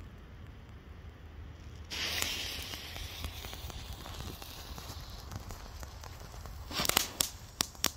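Miniature firework fountain (Klasek DP1FR Rozpustilé Fontánky) hissing as it burns, starting suddenly about two seconds in, with a run of loud, sharp crackling pops near the end.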